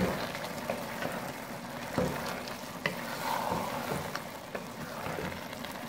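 Wooden spatula stirring half-cooked rice with potatoes and chickpeas in a non-stick pot, scraping through the wet rice with a few sharp knocks against the pot. Under it the cooking water simmers steadily.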